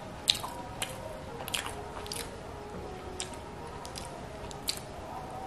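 Close-up chewing of soft semolina idli soaked in sambar, with wet mouth sounds and sharp clicks and smacks roughly every half second to second. The loudest comes about a third of a second in.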